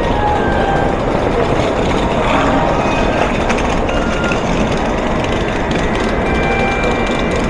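Nozomi Shinkansen bullet train pulling in to the platform: a steady loud rush of train noise, with a few brief high tones over it.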